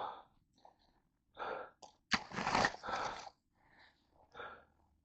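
A player breathing hard close to the microphone, a few heavy, hissing breaths in and out, winded from running.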